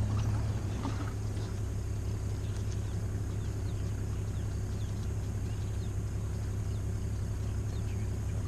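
Steady low hum of an idling engine, with faint short high chirps now and then.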